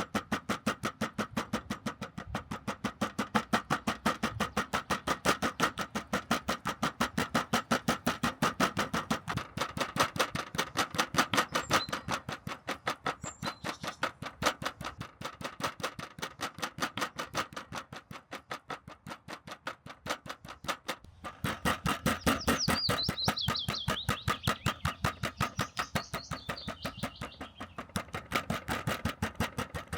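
A butterflied chicken breast being pounded flat: rapid, steady, evenly spaced blows, about four a second.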